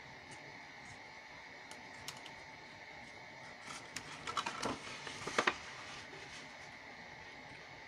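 A cardstock gift box being handled and lifted off a paper scoring board: a short flurry of light paper clicks, taps and rustles about four to five and a half seconds in, over a faint steady hum.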